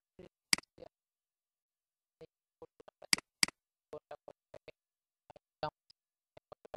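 Computer mouse clicking and its scroll wheel ticking in short irregular runs, with three sharp louder clicks: one about half a second in and two close together about three seconds in.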